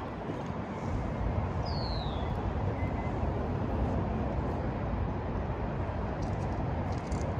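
Steady low rumble of background road traffic with some low buffeting, and a single short falling whistle about two seconds in.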